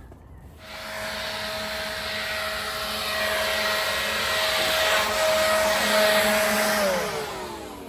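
Handheld leaf blower switched on about half a second in, running steadily with a rush of air and a steady whine as it blows grit across patio paving stones. Near the end it is switched off and its pitch falls as it winds down.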